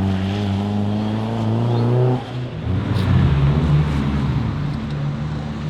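Turbocharged Mazda MX-5 SE engine pulling hard under racing conditions: its revs climb steadily for about two seconds, then drop suddenly, and it runs on at lower, uneven revs.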